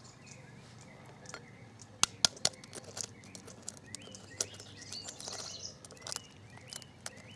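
A knife tapping and cracking the shell of an unhatched chicken egg on concrete: three sharp clicks about two seconds in, then lighter ticks and scrapes. Birds chirp in the background.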